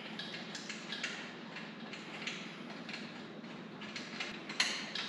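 Lug nuts being threaded and hand-tightened onto a wheel's studs: irregular small metallic clicks and scrapes, with one sharper clack near the end.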